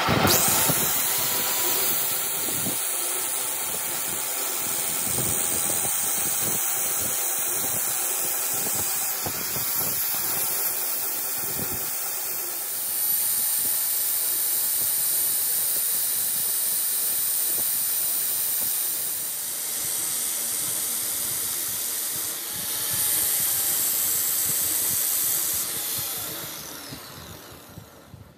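Angle grinder with an abrasive disc grinding a steel hydraulic jack shaft as it turns in a lathe, a steady hissing grind over the running lathe. It grows louder about halfway through and dies away near the end.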